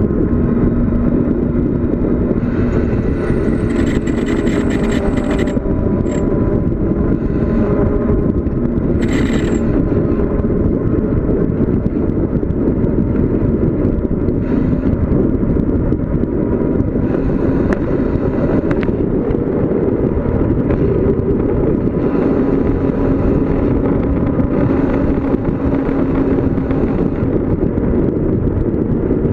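Steady, loud wind rush buffeting the microphone of a bicycle speeding downhill, mixed with road noise, with a few brief higher hisses.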